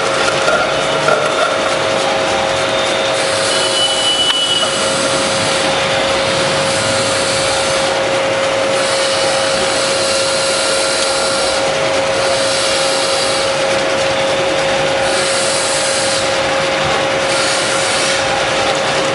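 Pistachio slicing machine running and cutting nuts: a steady motor hum under a rasping hiss from the slicing, which swells and fades in stretches of a second or two.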